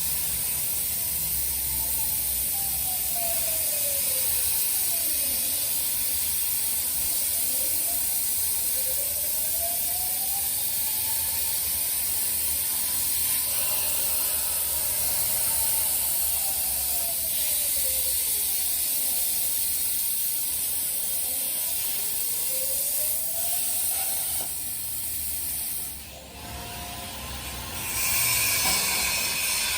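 CNC plasma cutter cutting thin steel sheet: the plasma arc hisses steadily and high, while the machine's drive motors whine in rising and falling sweeps as the torch speeds up and slows. About 25 seconds in, the hiss drops away for two or three seconds, then starts again.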